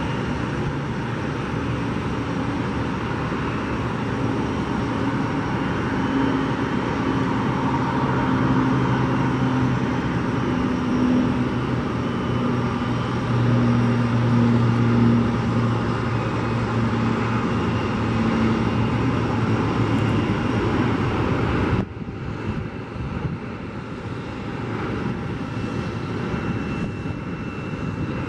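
Boeing 737-900 jet on final approach, its CFM56 turbofan engines running with a steady noise and a low hum that grows a little louder as it nears. About three-quarters of the way through, the sound drops abruptly to a quieter level and carries on as the plane reaches the runway.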